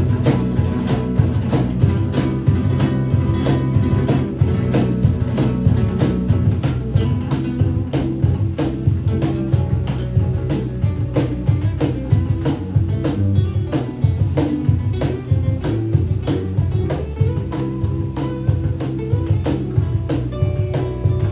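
Small rock band playing an instrumental passage: guitar, bass and drums, with a steady beat of sharp hits several times a second.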